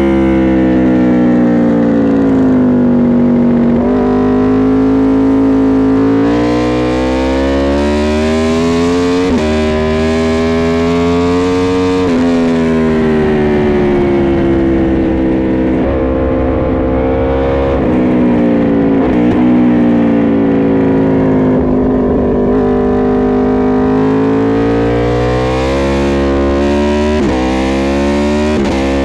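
Aprilia RSV4 RF's V4 engine ridden hard around a race circuit. The pitch climbs under acceleration with short breaks at each upshift, then sinks under braking and downshifts. This happens several times, with wind rush underneath.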